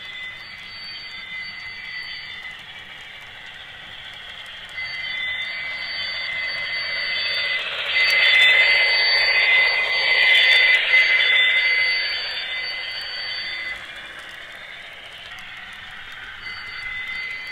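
HO scale Broadway Limited Baldwin Centipede model locomotive and its train running along the track, getting louder as it passes close about eight seconds in and easing off after about twelve seconds. A steady high whine cuts in and out over the running noise.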